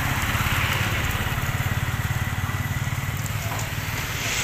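A small engine idling steadily, with a fast even pulse, and a hiss over it.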